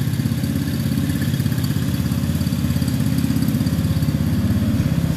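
Small 125cc single-cylinder gas engine of a mini jeep golf cart idling, a steady fast putter.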